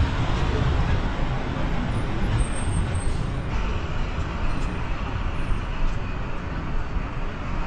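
Steady city street traffic noise: a continuous rumble of passing road vehicles.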